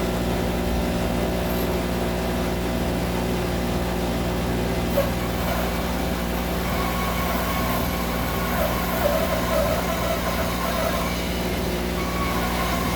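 Electric bandsaw running steadily with a constant motor hum.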